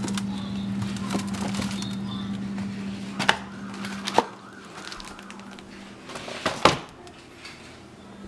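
Frozen lasagna box being handled: cardboard rustling and a few sharp knocks and clatters, the loudest near the end as the box is put down on a glass-top stove. A steady low hum runs underneath.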